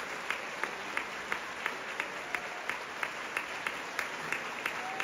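Theatre audience applauding, with sharp claps standing out above the general applause in a steady beat of about three a second.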